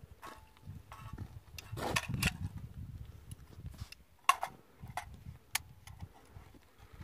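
Handling noise: scattered short clicks and knocks, with a cluster about two seconds in and one sharper knock about four seconds in.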